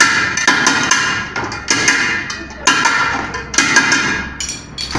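Hammer blows on the aluminium rim of a pressure cooker, about two strikes a second, each with a brief metallic ring. The rim is being hammered back down where it bulged out of shape.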